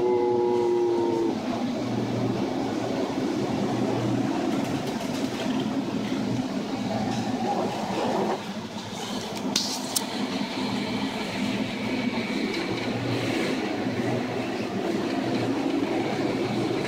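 Steady drone of a ship's engine under rushing wind and sea noise as the ship pitches through heavy storm waves. A short tone sounds at the start and a sharp knock comes about ten seconds in.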